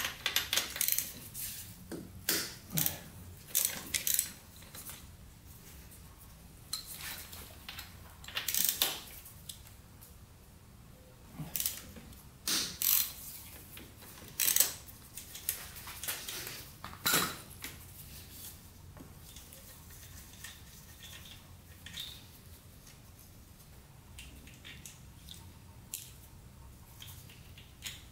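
A ratchet and socket clicking, with metal tools and loose nuts clinking, as the cylinder head nuts come off the studs of a 1996 Suzuki RM125's two-stroke engine. The clicks and clinks come in irregular bunches, busiest in the first half and sparse near the end.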